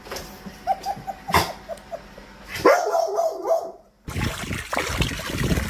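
A Labrador retriever whining in quick, short, high yips, then giving one longer, louder cry near the middle. It cuts off abruptly, and a rough, low, noisy sound takes over for the last second and a half.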